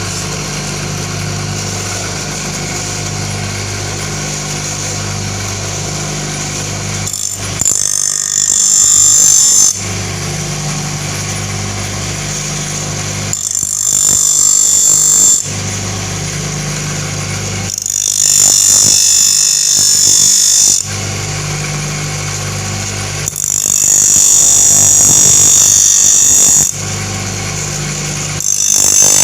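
Electric grinder running with a steady hum, and five stretches of a few seconds each of loud high-pitched grinding hiss as a wood-cutter blade is sharpened against the wheel in a jig.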